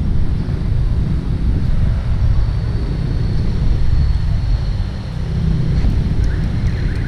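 Wind rumbling on an action camera's microphone, mixed with road traffic noise, with a faint steady high whine above it.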